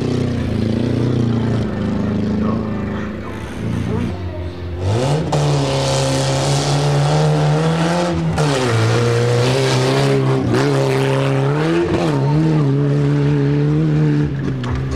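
Off-road race vehicle's engine under hard acceleration. A steadier note runs first, then the revs climb sharply, drop twice as it shifts gear and climb again, holding high revs to the end.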